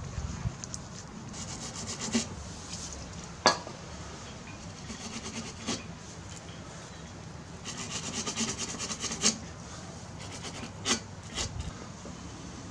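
A small metal hand tool scraping and scratching on a Briggs & Stratton lawnmower engine where the flywheel has been removed. There are two short stretches of rapid scratching strokes, one about a second in and a longer one past the middle, with a handful of sharp metal clicks and taps between them.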